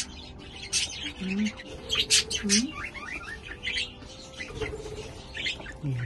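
Budgerigars chirping and chattering, many short sharp high chirps overlapping in quick, irregular succession.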